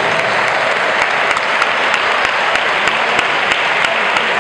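Audience applauding steadily, a dense patter of hand claps with sharp individual claps standing out.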